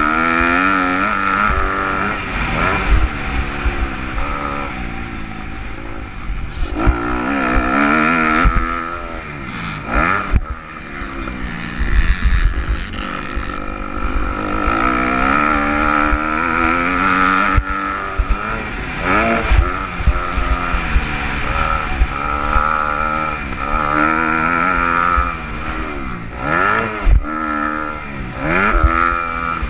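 250-class motocross bike engine at racing speed, revving up and dropping back again and again through gear changes and corners, heard from the rider's helmet camera. Frequent low thumps of wind buffeting the microphone.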